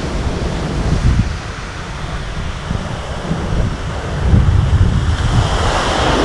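Wind buffeting the microphone: an uneven, gusting low rumble, swelling into a broader rush near the end.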